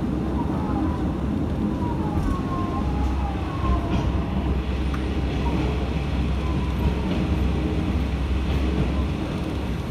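Matsuura Railway MR-600 diesel railcar running along the line, heard from inside the car: a steady low rumble of engine and wheels, with faint short whines sliding in pitch now and then.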